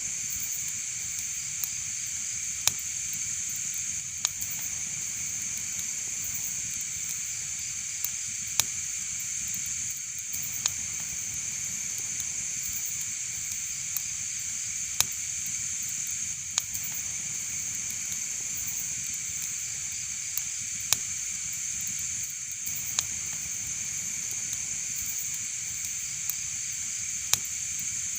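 Wood fire in a fireplace crackling: about a dozen sharp pops at irregular intervals of one to a few seconds over a steady hiss.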